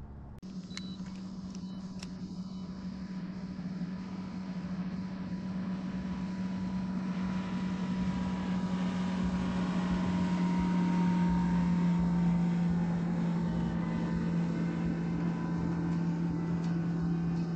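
Electric trolling motor on a fishing kayak humming steadily. It switches on about half a second in and grows louder over the next several seconds, then holds.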